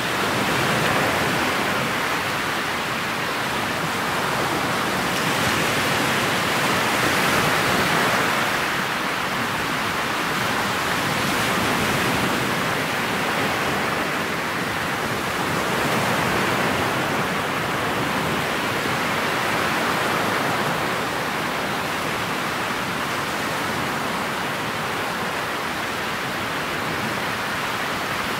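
Motorboat underway through choppy water: a steady rush of water along the hull and wind past the bow, swelling and easing every few seconds as it meets the waves.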